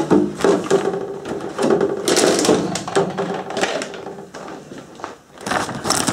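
Plastic parts bags and a clear Lexan body shell crinkling and crackling as they are handled. There is a brief lull about five seconds in, then a bag rustles again.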